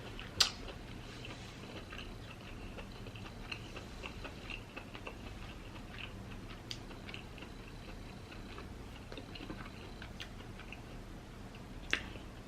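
Close-miked chewing of lobster, with a run of small wet mouth clicks; a sharper click about half a second in and another near the end.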